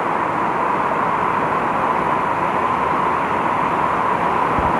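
Steady roar of rushing water from a waterfall and river, even and unbroken.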